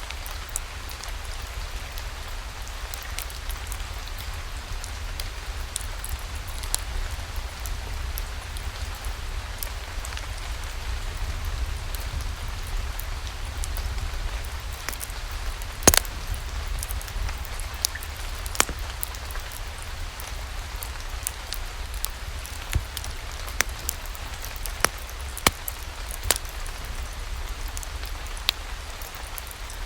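Steady rainfall with scattered sharp pops, the loudest about halfway through.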